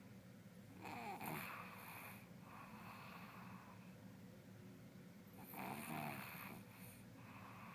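A person snoring in sleep: two snores about five seconds apart, each followed by a softer breath out.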